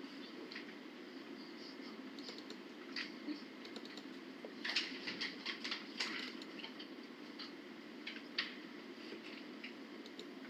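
Scattered light clicks and taps at a computer, with a quick run of them about five seconds in, over a steady low hum of room noise.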